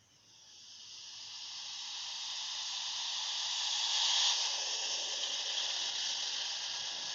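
Airbus A380 jet engines growing louder as the airliner comes closer: a rising hiss with steady whining tones that builds over about four seconds, then holds.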